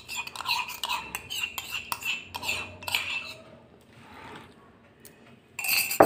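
Steel spoon clinking and scraping against the inside of a ceramic mug as yeast in warm water is stirred, a quick run of clicks over the first three seconds, then quieter, with a louder clatter just before the end.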